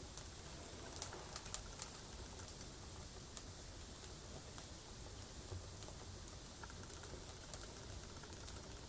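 Firewood crackling as it burns in a stove's firebox: scattered sharp pops and snaps, most of them bunched together a second or two in, over a faint steady hiss.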